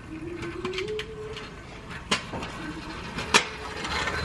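A child's kick scooter rolling on a concrete driveway, its small wheels rattling, with two sharp clacks about two and three and a half seconds in.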